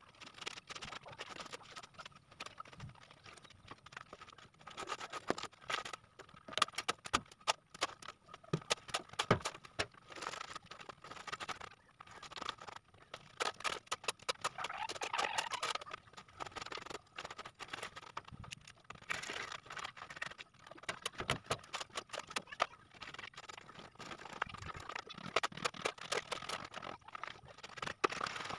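A wooden board scraping and dragging over loose sandy soil and gravel, with many irregular small gritty clicks and scuffs, as the fill is levelled flat.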